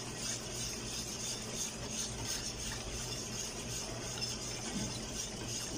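Wire whisk stirring boiling maja blanca mixture in a large stainless steel pot: a soft swishing that pulses with each stroke, over a steady low hum.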